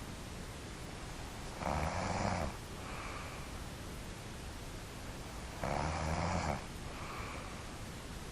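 A sleeping person snoring: two loud snores about four seconds apart, each just under a second long and each followed by a fainter breath, over a steady hiss.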